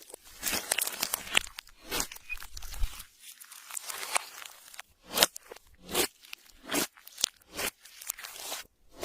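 Clear slime being squished and kneaded by hand, making irregular crackling clicks and pops as air pockets burst: a dense patter at first, then single sharp pops about once a second.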